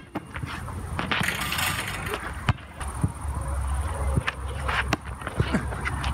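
Basketball dribbled on a hard outdoor court: a series of sharp bounces about a second apart over a steady low rumble.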